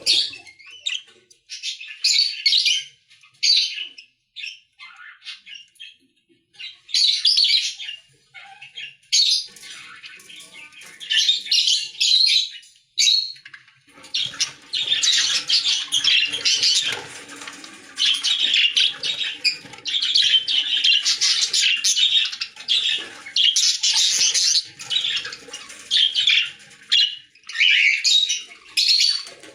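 Caged pet lovebirds chattering and squawking in shrill, high-pitched bursts. About halfway through, the calls become a near-continuous dense chatter of many birds.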